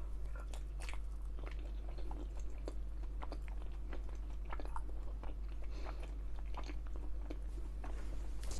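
Close-miked chewing: irregular wet mouth clicks and soft smacks of food being chewed, over a steady low hum.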